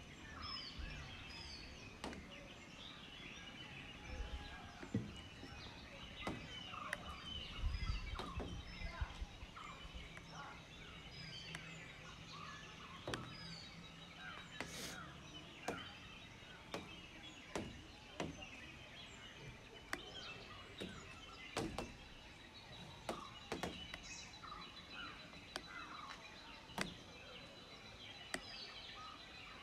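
Many birds calling at once, short chirps and whistled notes overlapping throughout. Near the end, a fast thin trill holds one high note for several seconds.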